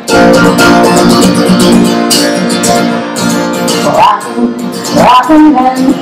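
Acoustic guitar strumming chords, starting suddenly at the outset, as the song's instrumental intro. About four and five seconds in, a short pitched note slides upward over the chords.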